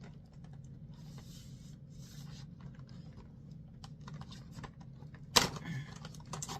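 Fingernails clicking and picking at the cardboard door of an advent calendar, with light scattered taps and a soft rustle, then a sharp tear near the end as the door is pulled open.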